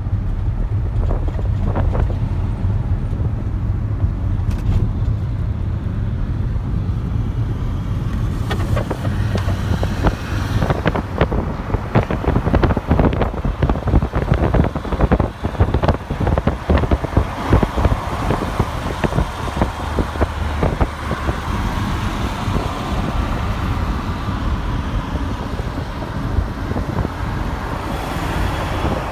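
Road noise inside a moving car: a steady low rumble of engine and tyres, with a stretch of rapid, irregular knocks and crackles through the middle.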